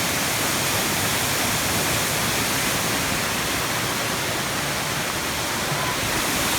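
Mountain waterfall rushing steadily, running high after rain.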